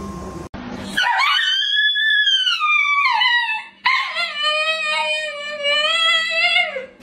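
Husky howling in two long drawn-out calls: the first rises and then falls, and the second is lower and held level before dropping off at the end.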